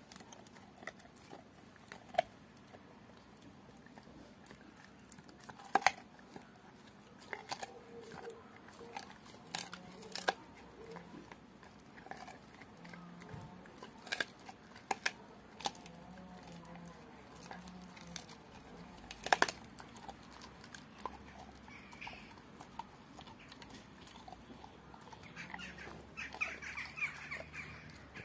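Nine-month-old Rottweiler gnawing a raw pork bone: irregular sharp cracks and crunches of teeth on bone, some seconds apart.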